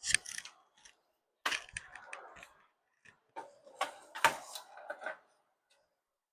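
Clicks, knocks and scraping of a Roberts Play 10 radio's case being handled as its back is put on, in three short bursts of handling, the sharpest click about four seconds in.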